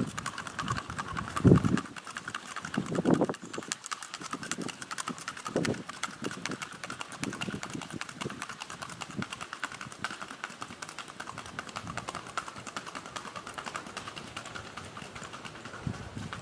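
Hoofbeats of a Paso Fino horse gaiting under a rider: a rapid, even clatter of many quick hoof strikes on a hard path, with a few louder low thuds in the first few seconds.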